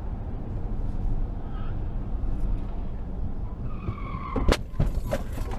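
Car tyres squealing briefly during a hard swerve at freeway speed, over steady road rumble heard from inside the car, followed about four and a half seconds in by a loud sharp bang and a few more knocks.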